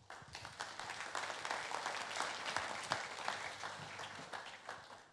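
Audience applauding: many hands clapping that starts at once, holds, then dies away near the end.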